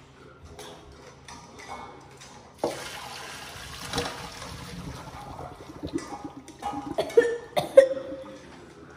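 Hot cooking water poured from a pot into a metal colander in a sink, a steady rushing splash that starts suddenly about two and a half seconds in and lasts about three seconds. It is followed by a few sharp metallic knocks with a brief ring as the pot is handled over the sink; the loudest comes near the end.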